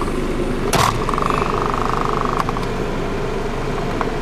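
Mazda 626's 2.0-litre FS four-cylinder engine idling steadily, with loose items in the car rattling: a sharp clack about a second in, then a fast buzzing rattle for about a second and a half that ends with a click.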